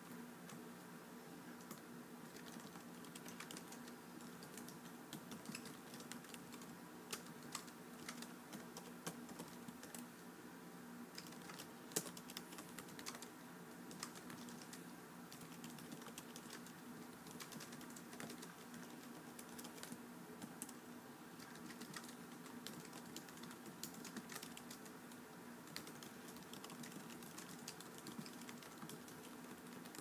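Typing on a computer keyboard: quiet, quick, irregular key clicks over a faint steady hum.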